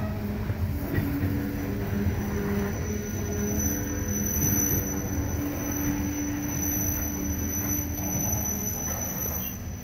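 Loaded coal hopper cars rolling past on the rails, the wheels rumbling steadily with a faint squeal, as the last cars of the train go by.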